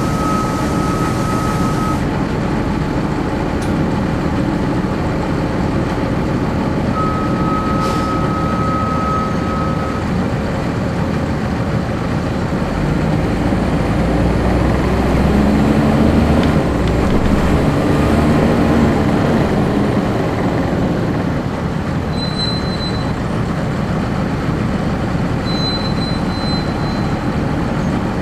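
Interior of a 1999 Nova Bus RTS transit bus from the rear seats, its Cummins ISC inline-six diesel running as the bus drives; about halfway through the engine note climbs and grows louder as the bus accelerates. A few short, steady high-pitched squeals come near the start and again near the end.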